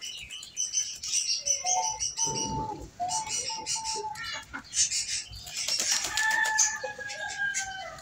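Backyard chickens and other fowl calling: several short calls in the first half, then one long drawn-out call that falls slightly in pitch near the end, amid many short sharp high chirps.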